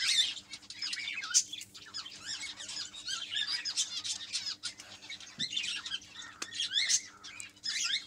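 Many small birds chirping and chattering continuously in high, quick, overlapping calls, with a few sharp clicks from pliers working the steel wire mesh.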